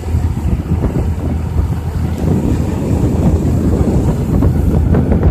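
Wind buffeting the microphone: a loud, steady low rumble without a clear pitch.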